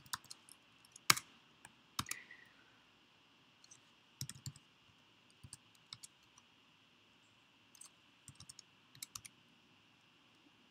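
Typing on a computer keyboard: irregular keystrokes, singly and in short runs with pauses between, the sharpest clicks about one and two seconds in. A faint steady high tone lies underneath.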